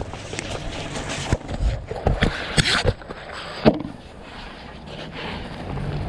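Canvas fire hose being hauled by hand while walking over dry pine needles and stones: irregular scuffs, crunching steps and knocks, with several louder thumps in the first half. Gloves and sleeves brush right against the microphone.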